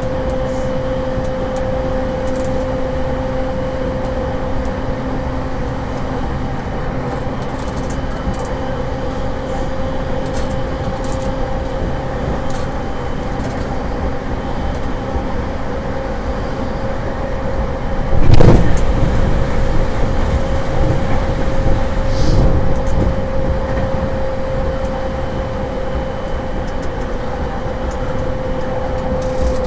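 Inside an E231-1000 series electric commuter train running at steady speed: low rumble of wheels on rail with a steady mid-pitched whine. About two-thirds of the way through a sudden loud rush rises and fades over a few seconds, with a smaller one shortly after.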